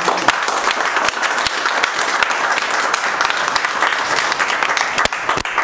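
A room of people clapping together: steady applause of many quick, overlapping claps.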